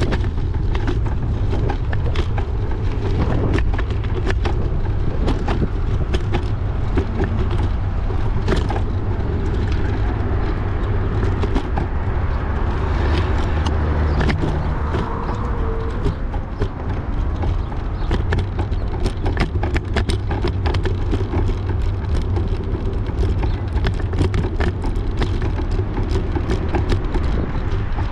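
Wind buffeting the microphone as a heavy steady rumble during a bike ride, with frequent small clicks and rattles from the bike on the road.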